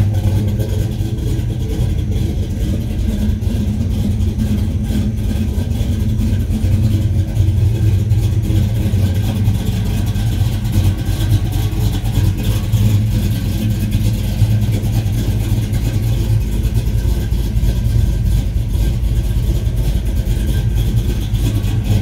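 A 355 V8 idling steadily through headers and a dual exhaust, a deep, even rumble.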